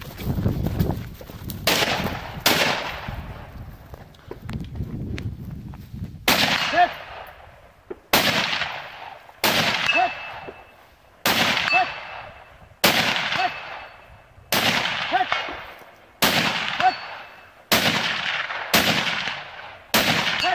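About a dozen gunshots from a kneeling shooter at a barricade, the first two close together and the rest spaced about a second and a half apart. Most are followed about half a second later by a faint ring from a distant steel target being hit.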